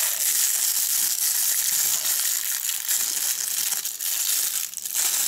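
Thin clear plastic bag crinkling and crackling continuously in the hands as it is squeezed and worked around a small phone holder inside it.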